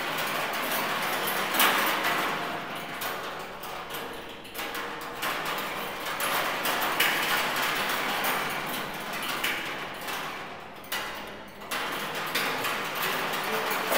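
Sound-art oil drum being rattled from inside by metal spoons on wires turned by a motor: a dense metallic clatter of many small knocks and scrapes that starts abruptly, then swells and ebbs.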